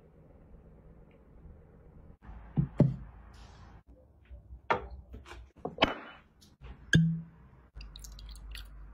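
Several sharp knocks and clinks, a second or so apart, from glass bottles being handled against a glass shelf and glassware, the loudest one near the end with a short low ring.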